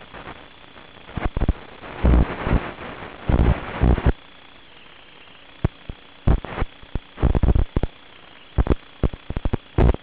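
Audio from an analog FPV video receiver: a steady low hiss with a faint high whine, broken by irregular loud bursts of static as the radio link breaks up.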